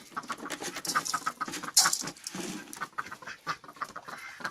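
Chickens clucking as they gather at their feed, mixed with short scattered clicks and taps.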